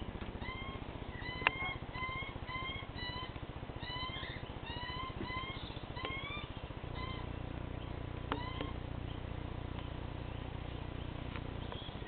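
Young butcherbird begging: a rapid series of short, rising, mewing calls, about two a second, that fade out after about six seconds, with a few more a couple of seconds later. A single sharp click comes about a second and a half in.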